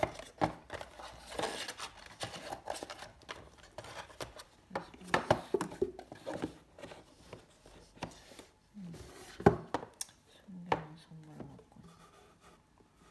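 Hands handling an empty rigid cardboard gift box and its insert on a table: an irregular string of knocks, taps and scrapes, the sharpest about five and nine and a half seconds in.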